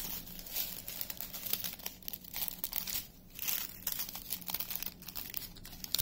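Small plastic bags of diamond-painting drills crinkling and rustling as they are handled, an irregular run of short crackles.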